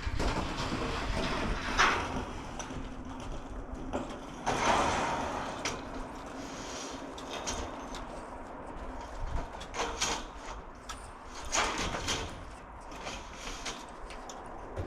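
Metal roofing panels sliding and scraping against each other and the roof as they are set into place: several rasping swishes a few seconds apart, over a steady low hum.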